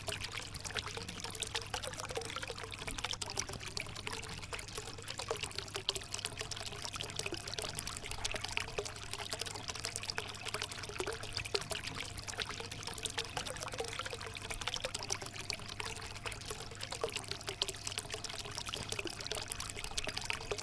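Water from a homemade cement fountain pouring and trickling steadily into its basin, with a continuous splashing patter.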